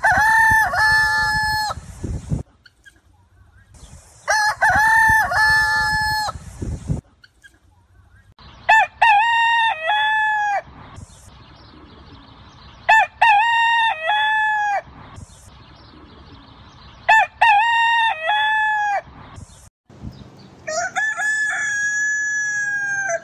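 Ayam kampung (Indonesian village chicken) rooster crowing over and over: six full cock-a-doodle-doo crows about four seconds apart, the first two the loudest, the last one cut off at the end.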